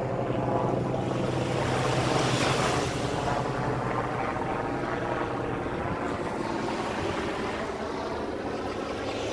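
A motor engine droning steadily, with small waves washing on the sand under it.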